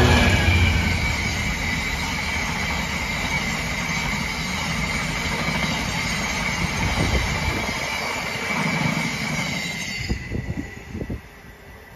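Class 66 diesel locomotive passing close by at the very start, its two-stroke V12 engine loud and then fading, as a long rake of empty box wagons rolls past with a steady rumble and a steady high whine from the wheels. About ten seconds in, the last wagons pass with a few clunks and the sound drops away.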